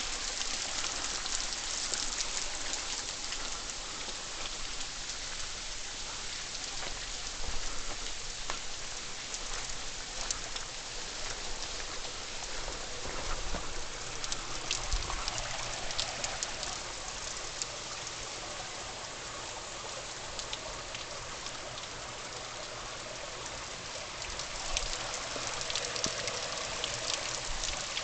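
Waterfall: a steady hiss of falling water, dotted with the crackle of splashing droplets.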